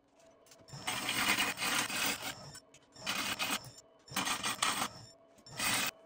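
A turning tool cutting a spinning burl wood blank on a wood lathe, in several rough, scratchy cuts of half a second to a second and a half, with short pauses between.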